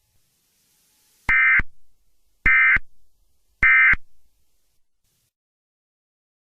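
Emergency Alert System end-of-message signal: three short bursts of SAME digital data tones, about a second apart, marking the end of the alert.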